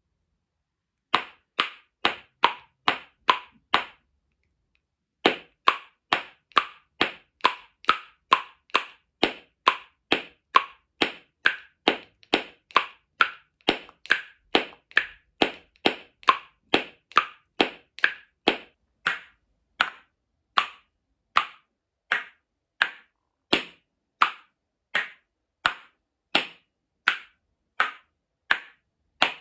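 A pair of painted wooden spoons clacked together bowl to bowl, struck between palm and knee in a steady beat a little under two strikes a second. The beat pauses briefly just after the start and again about four seconds in; this is a beginner practising a basic rhythm.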